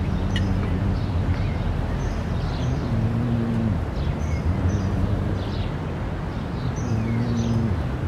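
Outdoor ambience of birds chirping now and then over a steady low rumble with held low tones that rise and fall.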